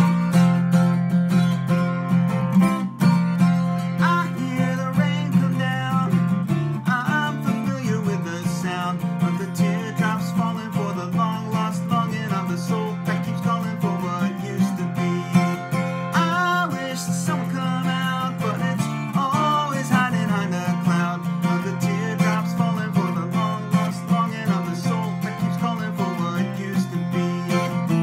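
Acoustic guitar strummed in a steady rhythm, with a man singing along from a few seconds in.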